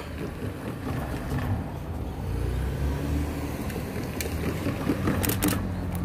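Road traffic at the level crossing: a car engine running close by, a low rumble that swells about two to three seconds in.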